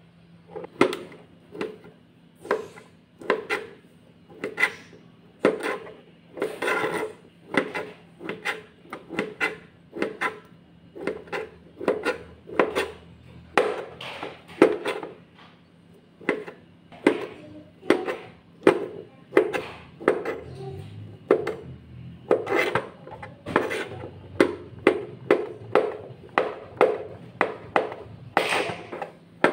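Chef's knife chopping sausage on a plastic cutting board: the blade knocks on the board in a steady rhythm of about two cuts a second.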